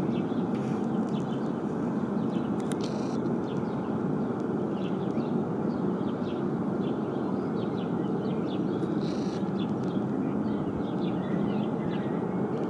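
Ariane 5 rocket engine on a test stand firing, heard from far off as a steady, unbroken low roar. Birds chirp over it.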